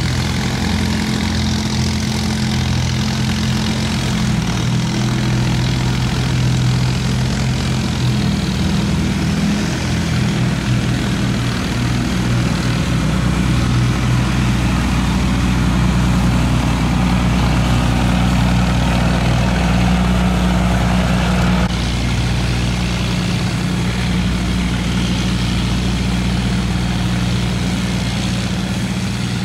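Boat engine running steadily, a loud low drone with a few held tones; its sound changes slightly about twenty-two seconds in.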